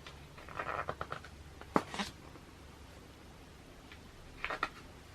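Pages of a glossy hardcover magazine being turned by hand: a short paper rustle, then a few sharp flicks and snaps of the pages.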